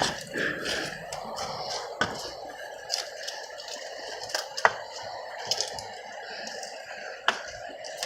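Creek water running steadily, with a handful of sharp clicks and squishes from footsteps and a walking stick on rocky, muddy ground.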